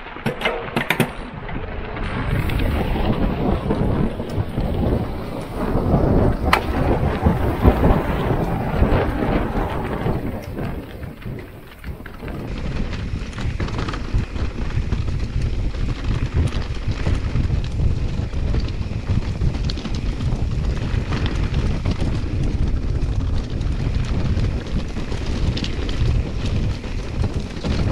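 Wind rumbling on the microphone while an electric mountain bike rattles and crunches over loose stones and rocks on a rough descent: a steady, noisy rumble with scattered knocks.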